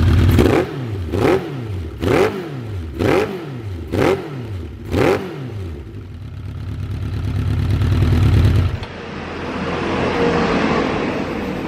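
Suzuki GSX-R1100's oil-cooled inline-four, breathing through a Tec Surf titanium full exhaust, blipped from idle five times about once a second, each rev rising and falling sharply. Then it is run up in one longer, slower rev before the engine note cuts off abruptly.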